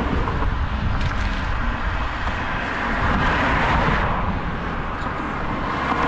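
Road traffic passing on a highway: a steady rushing of tyres on asphalt that swells about halfway through and again near the end, over a low rumble.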